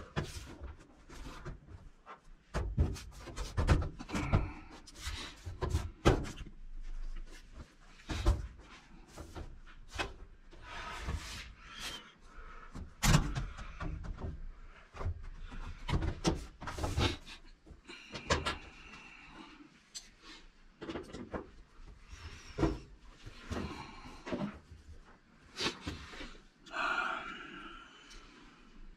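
Washing machine's rear cover panel being handled and fitted back on: irregular knocks, clicks and scrapes of the panel against the machine's casing, some sharp and loud, others light.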